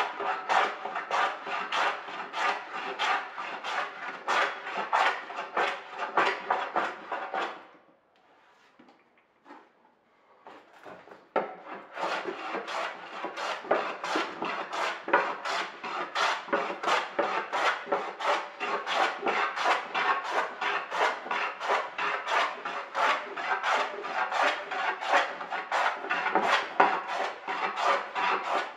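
Metal hand plane cutting a merbau hardwood board in quick back-and-forth strokes, a rasping swish about two to three times a second. The strokes stop for about three seconds partway through, then start again.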